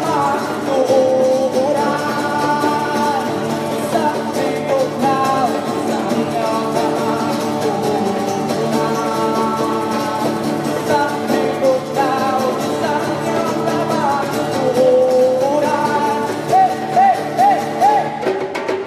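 Live ethnic folk band playing a song: singing over strummed acoustic guitar and hand drum. Near the end comes a quick run of short warbling notes.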